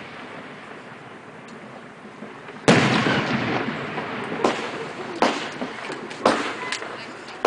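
Fireworks going off: after a quiet start, a loud bang about two and a half seconds in, with a long fading tail, followed by a string of separate sharp bangs about a second apart.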